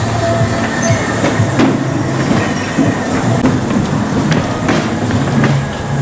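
Electric bumper cars running on a rink: a steady rumbling hum from the cars' motors and wheels on the metal floor, with several sharp knocks and clicks through it.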